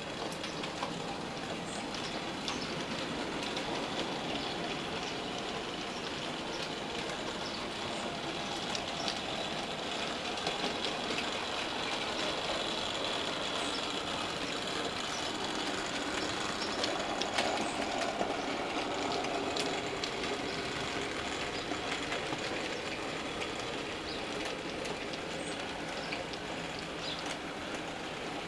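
OO gauge model steam locomotives, a Class O4 and a WD 2-8-0, running with trains of coal wagons. Their motors whir steadily with a faint high whine, and the wheels click lightly over rail joints and pointwork.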